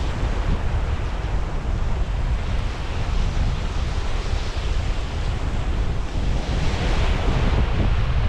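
Strong wind buffeting the microphone with a heavy rumble, over the hiss of small waves breaking and washing on a beach; the surf hiss swells about six and a half seconds in.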